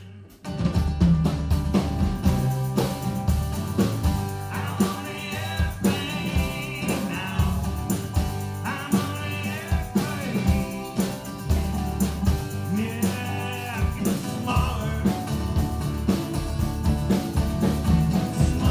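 Live acoustic country band playing an instrumental passage: lap steel guitar over strummed acoustic guitar with hand percussion. The full band comes in loudly about half a second in.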